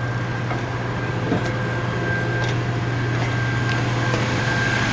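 Rescue truck running at idle: a steady low hum with a thin high whine over it, growing slightly louder, with a few faint light knocks.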